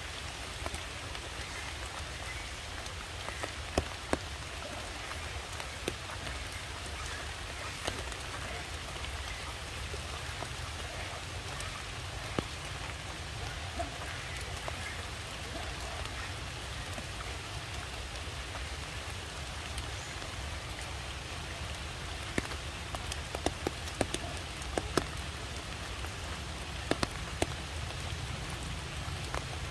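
Steady hiss of rain, with scattered sharp ticks of drops, several of them close together in the last several seconds.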